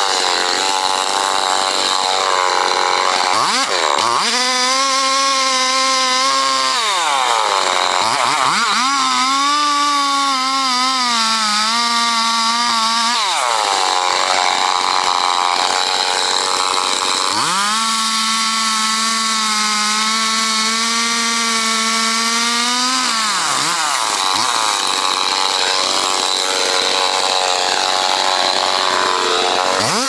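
Two-stroke chainsaw cutting into a large tree trunk, its engine pitch rising and falling: three held high-pitched stretches of a few seconds each, with a lower, wavering pitch between them while the bar is in the cut.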